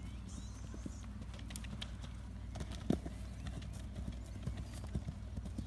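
Hoofbeats of a grey Connemara-type pony cantering on turf: dull, irregular thuds, one louder about three seconds in, over a steady low rumble.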